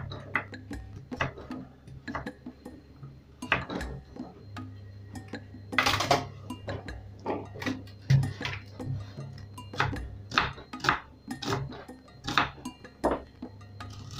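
A kitchen knife chopping on a wooden cutting board: irregular sharp knocks of the blade against the board as butternut squash is cut into cubes, then a red onion is sliced near the end.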